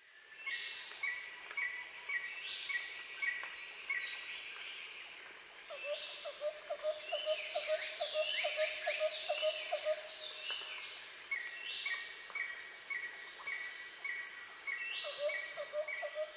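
Bird and insect calls: a steady high insect-like drone, runs of short repeated chirps about twice a second, several falling whistles, and a low rapid trill that comes in about six seconds in and again near the end.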